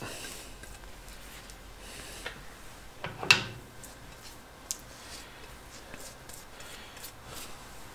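Quiet handling sounds of copper grease being worked onto a machine tool's gib strip: a few light clicks and taps, with one sharper click about three seconds in.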